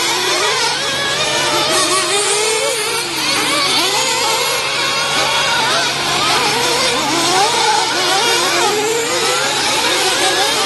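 Several 1/8-scale nitro RC truggies racing, their small two-stroke glow engines overlapping in a high-pitched whine whose pitch keeps rising and falling as they rev up and back off through the corners.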